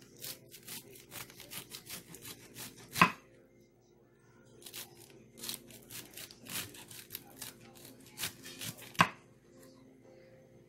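Kitchen knife slicing thin shreds from a head of green cabbage on a wooden cutting board: crisp quick strokes, about four a second, with a short pause about three seconds in. Two louder knocks of the blade on the board stand out, about three seconds in and again about nine seconds in.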